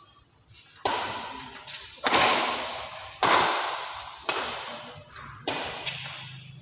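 Badminton rackets hitting a shuttlecock in a rally: about five sharp strikes roughly a second apart, with a couple of fainter hits between them, each echoing in the hall. The first strike comes about a second in.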